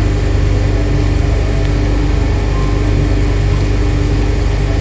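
Steady low machine rumble with a faint constant hum.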